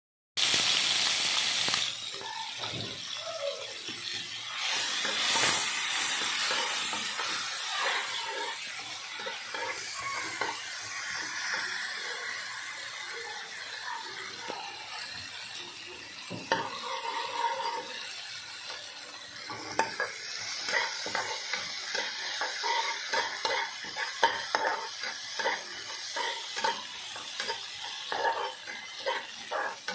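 Red spice paste sizzling in hot oil in a nonstick wok, with a loud burst of hissing at the very start as it hits the oil. A metal spatula scrapes and clinks against the pan as it is stirred, with the strokes coming quickly from about two-thirds of the way through.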